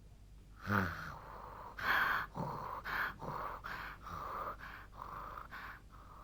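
A cartoon character snoring in sleep: a run of short, breathy snores, about eight in six seconds, the first one with a low rumble.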